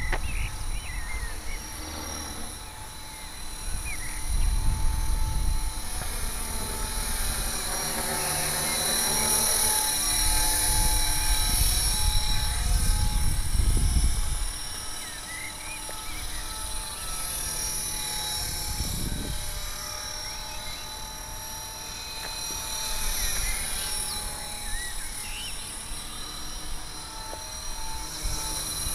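Electric 450-size RC helicopter (HK 450 Pro TT) running at about 2200 head rpm: a steady high whine from motor and drivetrain over an uneven low rumble that swells and fades, loudest in the middle. It carries the unhealthy noise of a defective mainshaft ball bearing.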